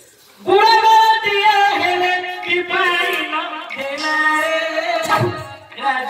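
Amplified folk song for a dance-drama: a woman's voice singing held, ornamented notes over keyboard accompaniment and percussion strikes. It starts loudly about half a second in.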